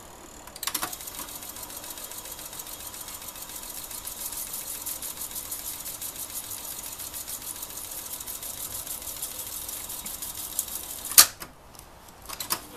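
Telefunken Magnetophon Automatic reel-to-reel tape recorder running its tape transport at fast wind between recordings: a steady mechanical whirr with a rapid fine ticking. A piano-key click starts it about half a second in, and a sharp clunk stops it about a second and a half before the end.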